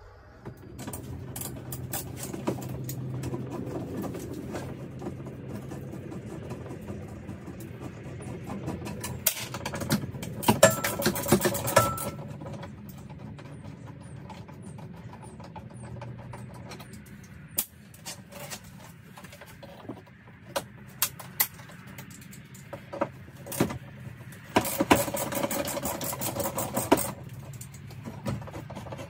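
A handheld power drill/driver whirs in two bursts, about ten seconds in and again about twenty-five seconds in, undoing the fixings of a metal grab bar. Between the bursts there are scattered clicks and knocks of tools and fittings.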